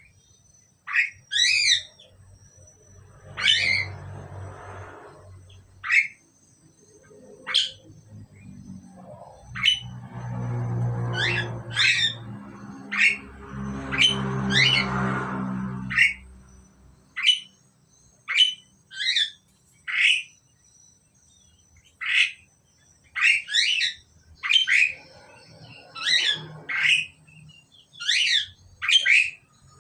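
Asian pied starlings (jalak suren) giving short, sharp calls, each a quick downward sweep, repeated about once a second, sometimes in pairs. A lower rumbling noise swells under them twice in the middle and again near the end.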